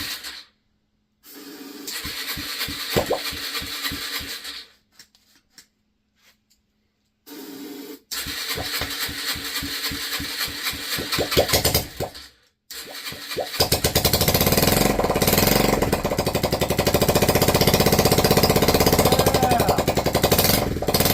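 Yamaha TTR125's single-cylinder four-stroke engine, running on starting fluid with no exhaust fitted after a crankshaft rebuild. It is turned over in two short bursts, then catches about thirteen seconds in and runs loudly and steadily in rapid pulses from the open exhaust port.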